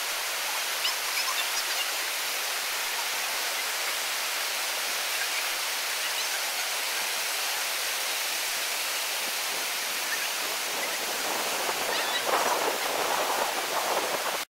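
Whitewater of a river rapid rushing steadily, a constant hiss of water over rocks. It grows a little louder and rougher near the end, then cuts off suddenly.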